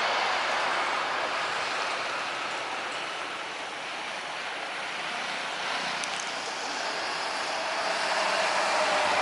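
Jet airliner engines making a steady rushing roar. The roar eases a little midway, then swells again near the end as a faint steady whine comes in.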